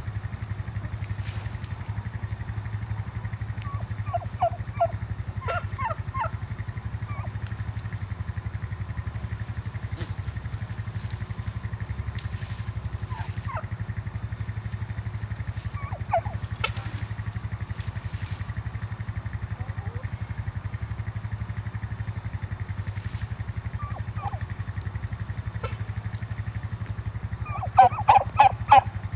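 Farm poultry calling in short bursts over a steady low hum, with a loud, rapid run of calls near the end.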